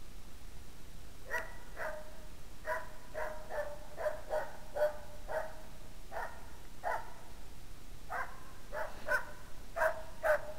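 Hunting dog barking at bay in a steady run of short, sharp barks, about two a second with brief pauses, starting a second or so in.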